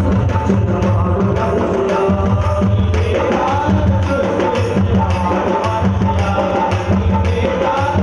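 Ayyappa devotional bhajan music, instrumental, led by tabla and other hand percussion keeping a steady beat of a few strokes a second under sustained melody notes.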